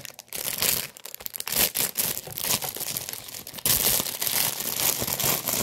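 Clear plastic packaging bag crinkling and tearing as hands pull it open, an irregular run of crackles that gets louder near the end.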